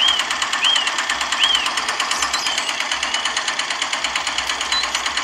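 Small motor of a miniature hand-tractor model running with a fast, even clatter, belt-driving a toy water pump. Three short high chirps sound in the first second and a half.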